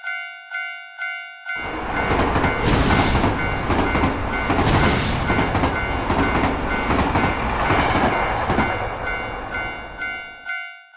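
Railroad crossing bell ringing about twice a second, joined about a second and a half in by a train passing over the crossing with a loud rumble and clatter and two short hissing bursts; bell and train stop together just before the end.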